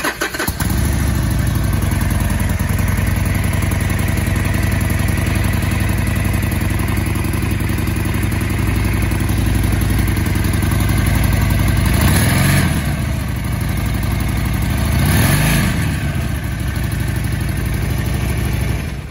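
A Harley-Davidson Sportster Forty-Eight Special's 1200 cc air-cooled V-twin starting up and idling, revved briefly twice, about twelve and fifteen seconds in, each time rising and falling back to idle, then shut off at the end.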